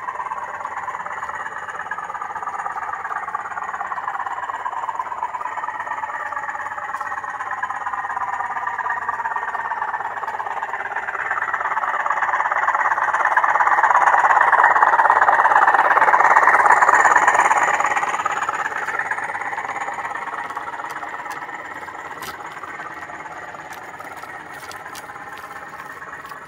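Sound decoder in a Bachmann Class 20 model locomotive playing the English Electric diesel engine under load through a small speaker in the nose. It grows louder as the model approaches, is loudest about halfway through, then fades as it moves away.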